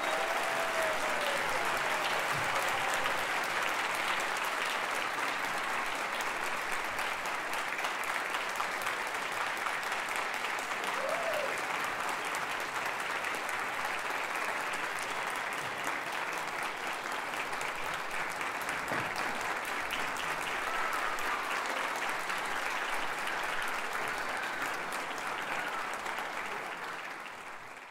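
Audience applauding steadily, a dense even clapping, fading out near the end.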